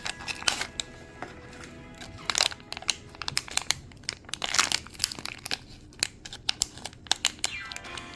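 Packaging crinkling and crunching in quick, irregular crackles as a mystery pin package is handled and opened, over background music.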